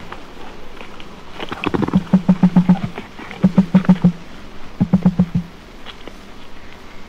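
Emu giving low, rapid pulsed drumming grunts in three short bouts of about seven or eight pulses each, a second or so apart.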